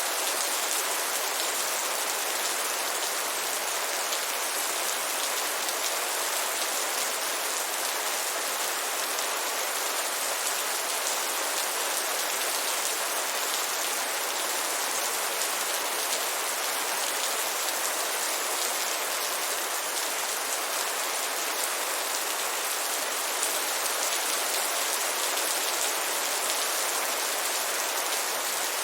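Heavy rain falling steadily, a dense, even hiss of drops on surfaces with no let-up.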